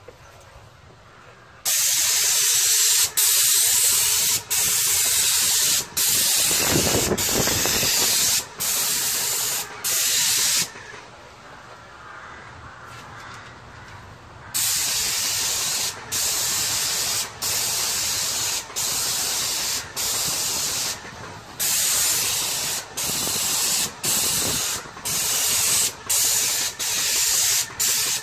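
Airless paint spray gun with a 517 tip spraying smooth masonry paint: a loud hiss in repeated passes of about a second each, cut off briefly each time the trigger is released between strokes, with a pause of a few seconds midway.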